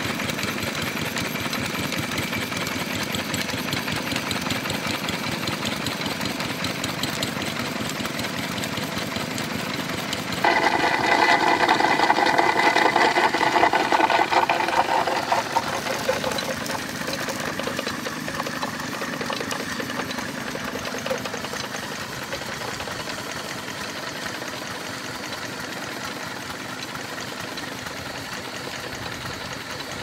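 Small single-cylinder stationary engine running steadily, driving a 1920s Bentall grain mill by flat belt. About ten seconds in, a louder noise cuts in abruptly and dies away over the next five seconds.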